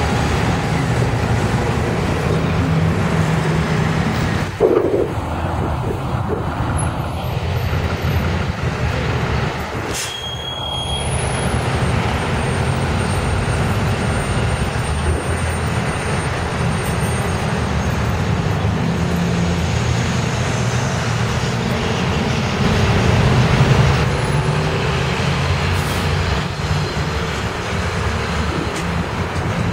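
City transit buses pulling away and driving past in street traffic: a steady engine drone with road noise, and a short thump about four and a half seconds in.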